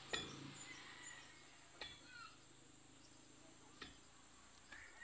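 A wooden pole jabbed into bare soil to make planting holes: four dull knocks at uneven gaps, the first the loudest.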